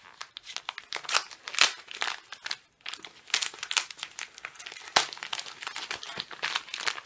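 Gift wrap and clear plastic packaging crinkling and tearing by hand as a small present is unwrapped, in quick irregular crackles with a few sharper snaps.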